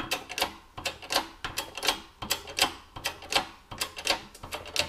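Hydraulic shop press pressing a bearing race into a steel bearing housing: a quick, uneven run of sharp metallic clicks, about four a second.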